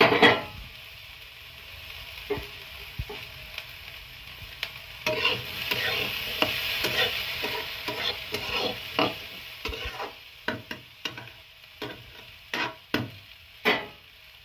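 Metal spatula scraping and knocking in a metal kadai as potatoes and fried vegetables are stirred, over a sizzle of frying in oil. A loud scrape right at the start, and sharp scrapes coming quickly in the second half.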